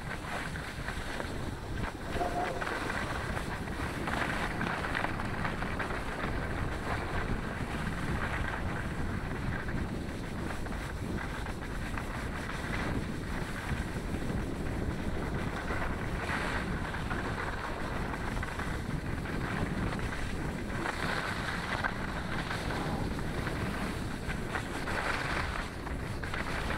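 Wind rushing over an action camera's microphone during a ski descent, mixed with the hiss of skis sliding over packed snow, which swells every few seconds with the turns.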